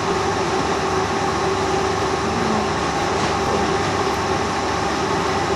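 Metal-working lathe running steadily with an even machine hum and a constant tone.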